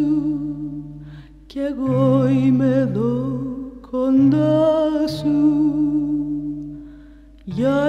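Background music: a slow Greek song with long, wavering held notes over sustained low chords, in phrases with short breaks between them.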